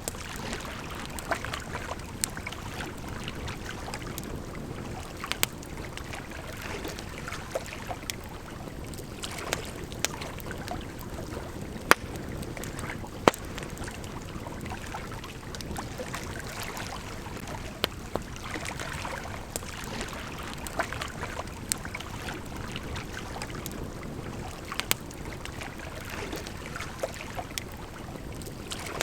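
Campfire crackling, with scattered sharp pops, over the steady rush of a gently flowing river. The loudest pops come about twelve and thirteen seconds in.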